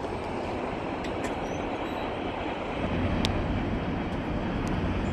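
Freight train cars rolling away along the track: a steady low rumble of wheels on rail with a few sharp clicks, one louder about three seconds in.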